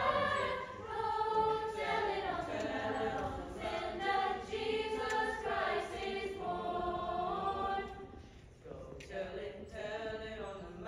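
Youth choir singing sustained, shifting chords. The sound drops briefly about eight seconds in, then comes back in quieter phrases.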